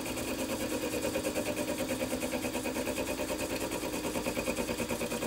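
Milling machine spindle running a fly cutter at about 500 rpm, taking a light facing cut across a metal block: a steady machine hum with a fast, even pulse several times a second.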